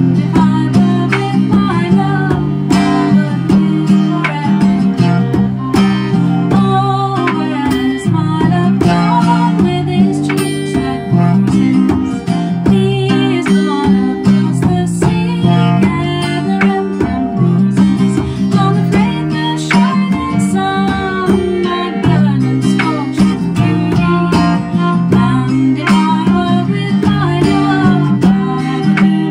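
Acoustic folk band playing an English folk song. A strummed acoustic guitar keeps a steady rhythm under a bowed fiddle melody.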